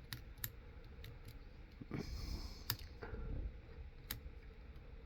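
Faint metallic clicks and light scraping of a half-diamond lock pick working the pins inside a lock, with a few sharper ticks scattered through.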